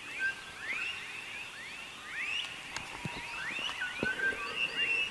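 Night chorus of frogs calling: many short, overlapping chirps that each sweep upward in pitch, with a few soft knocks in between.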